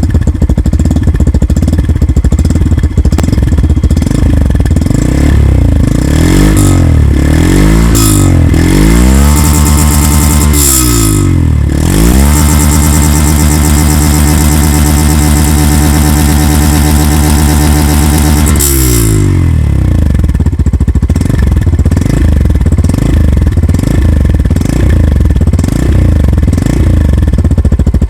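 Yamaha FZ-X's single-cylinder engine at idle, then revved gently in short blips. The revs are held steady and high for about six seconds in the middle, then fall back to idle with a few light blips near the end.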